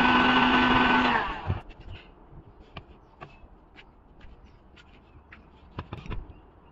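Heat gun blowing steadily with a low hum, then cutting off about a second and a half in. After that come faint scattered clicks and taps of a braided PVC hose being handled and worked over a wooden handle.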